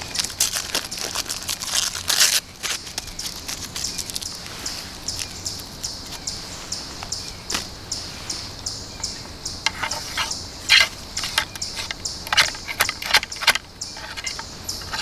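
Ramrod being worked down the barrel of a 20-gauge single-shot converted to a muzzleloader, seating the load: a run of short knocks and scrapes, thickest and loudest about two-thirds of the way through. A steady pulsing chorus of insects chirrs underneath.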